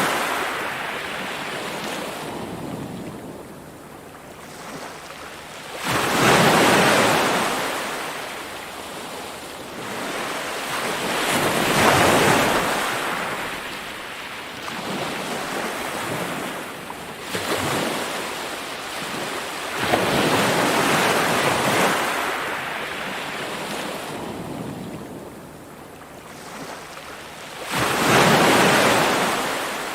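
Ocean waves breaking on a shore: about five breakers, each surge rising quickly into a crash and then fading slowly as the water washes back, over a constant hiss of surf.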